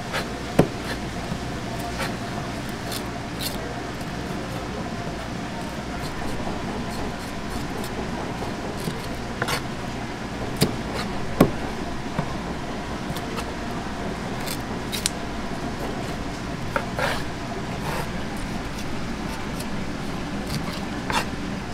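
Knife blade knocking and scraping on a plastic cutting board at irregular intervals as gizzard shad are beheaded and cut, over a steady background hum.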